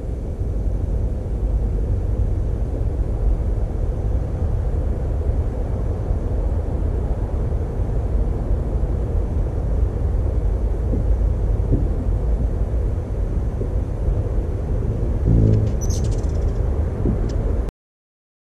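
Steady low outdoor rumble. About fifteen seconds in, a ruby-throated hummingbird's wings give a brief buzz as it takes off from its perch, followed by a short high chip.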